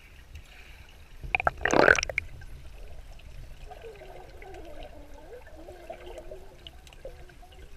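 Swimming-pool water heard from a camera held underwater: a muffled low sloshing, with one loud burst of water noise lasting under a second about a second and a half in. Faint wavering tones, like muffled voices carried through the water, follow in the second half.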